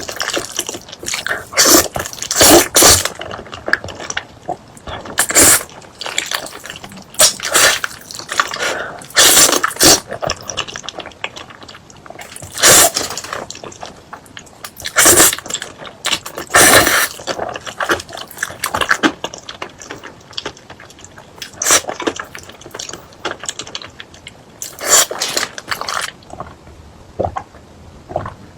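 Mukbang eating sounds: irregular loud bites and chewing, with sharp bursts every second or two and quieter chewing in between.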